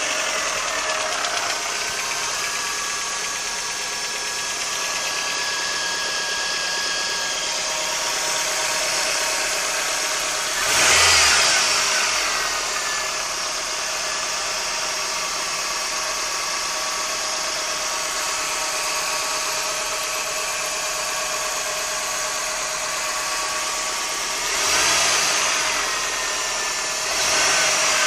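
Toyota Corona EXiV engine idling with a knock, which the owner takes for a knocking engine; it is revved briefly about 11 seconds in, again about 25 seconds in, and once more near the end.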